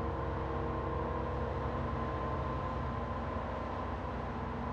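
A large engine running steadily: a deep, even rumble with a faint steady whine over it.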